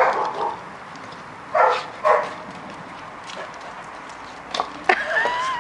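Foxhound barking: a short bark at the start and two more short barks a couple of seconds in, then a thin, high, wavering whine near the end.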